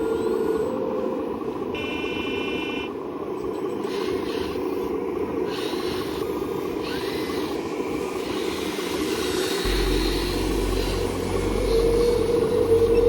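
Radio-controlled heavy equipment working, with a steady machine and engine noise throughout. A short electronic beep sounds about two seconds in, and a deeper engine rumble joins near the end.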